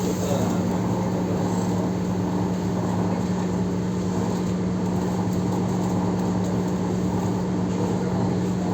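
Electric commuter train running, heard from inside the car: a steady hum with one constant low tone over an even rolling noise.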